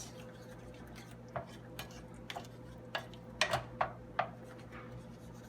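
A utensil stirring a thick butter, flour and sugar paste in a saucepan, tapping and scraping against the pan in about eight light, irregular clicks. A faint steady hum lies underneath.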